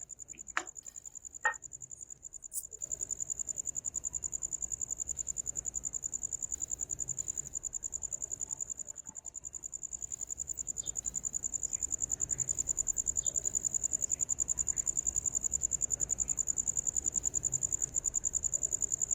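Crickets chirping: a steady, high-pitched, rapidly pulsing trill, with a few faint clicks in the first few seconds.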